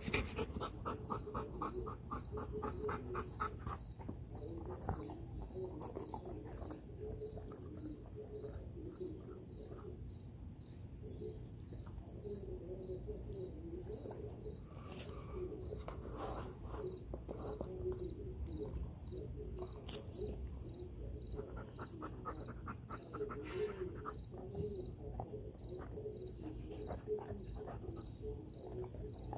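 An insect chirping steadily at a high pitch, about three chirps every two seconds, throughout. In the first few seconds a Belgian Malinois pants rapidly, and near the end there are soft sounds of the dog biting at a raw whole chicken.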